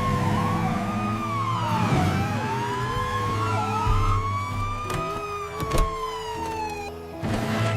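A siren wailing, its pitch sliding slowly down and up again every couple of seconds, over background music; two short clicks sound about two-thirds of the way through.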